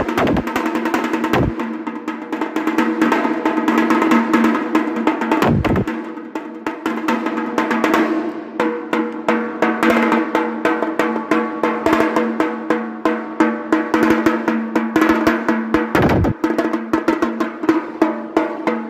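A 12-inch steel tasha drum played with a pair of thin sticks: fast, continuous strokes and rolls, with a steady ringing tone under the hits.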